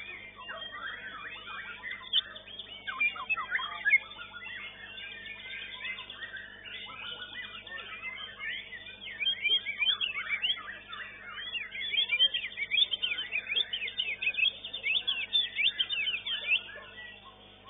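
White-rumped shamas (murai batu) singing at once, a dense run of quick whistles, chirps and chattering notes, heaviest in two stretches and thinning out near the end. A steady low hum lies beneath, and the sound is thin, with no top end, as heard through a CCTV camera's microphone.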